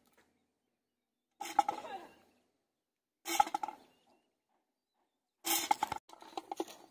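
Three short bursts of a person's voice, with dead silence between them.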